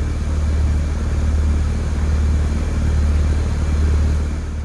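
Split-system heat pump outdoor unit running steadily in cooling: a loud, even low hum from the compressor under the rush of the condenser fan. Its subcooling reads right at the 11-degree target, so the refrigerant charge looks fine.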